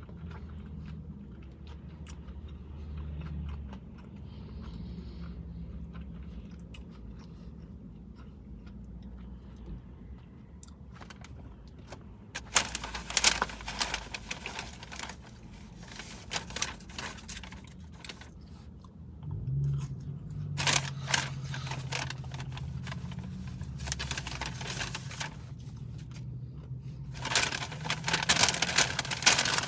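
Close-up mouth sounds of chewing a crispy fried chicken sandwich, over a low steady hum. Three times, about halfway through, two-thirds of the way in and near the end, there are bouts of louder crinkling and crackling as the paper food packaging is handled.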